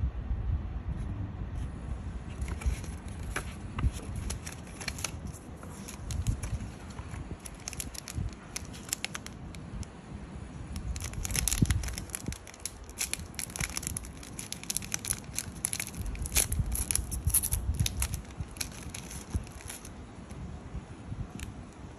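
Foil cookie wrapper crinkling and being torn open by hand, a run of rapid sharp crackles that is busiest in the second half, with a paper leaflet being handled at the start.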